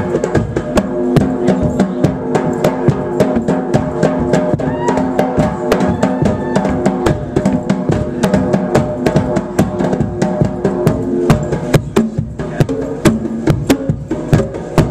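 Live band music built around a fast percussion solo: rapid, dense hand-drum strikes on stand-mounted drums and conga, over steady bass and guitar notes.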